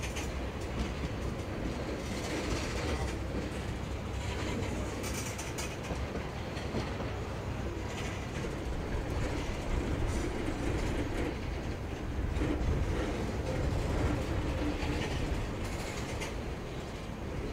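Freight cars of a Norfolk Southern train rolling past, a steady rumble with wheels clattering on the rails and a few brief high-pitched wheel screeches.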